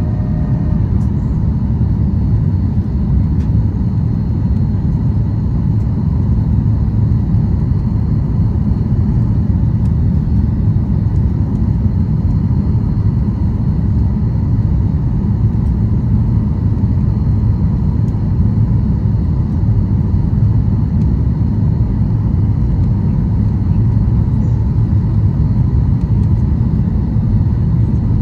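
Steady low rumble of cabin noise inside a Boeing 737-800 descending on approach to land, from its CFM56-7B engines and the air rushing past the airframe with the flaps extended.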